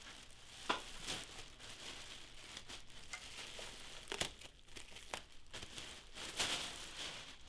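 Plastic wrapping crinkling and rustling as it is handled and pulled off the stand, with a few sharper crackles and snaps.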